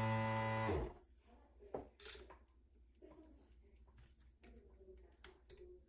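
Desoldering gun's vacuum pump running with a steady electric hum, then cutting off abruptly a little under a second in, as solder is sucked from a joint on the circuit card. After that there are only faint clicks and taps from handling the board.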